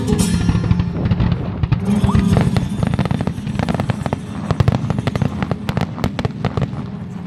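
Aerial fireworks going off in quick succession: a dense run of sharp bangs and crackles starts about a second in and thins out near the end. Music plays underneath.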